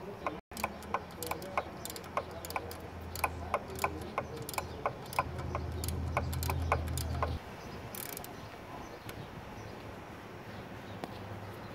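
Half-inch-drive socket ratchet clicking, about three clicks a second, as it turns a bolt out; the clicking stops about seven seconds in. A steady low hum underneath cuts off suddenly at about the same moment.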